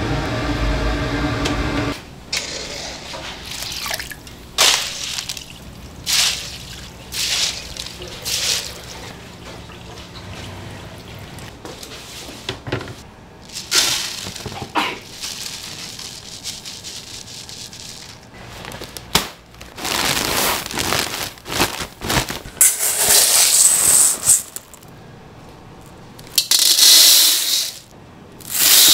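Water sloshing and pouring and soaked rice being tipped into a plastic colander, heard as a string of short splashing, pouring bursts. A steady hum cuts off about two seconds in, and a louder hiss of water comes twice near the end.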